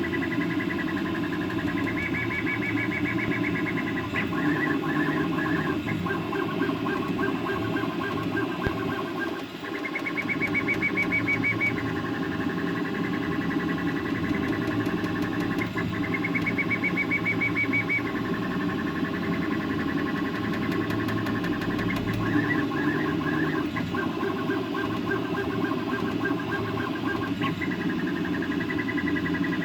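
HevORT 3D printer running its first moves, its stepper motors singing in high whines that step, rise and fall and hold as the print head moves, over a steady lower whir. The motion pauses briefly about nine seconds in.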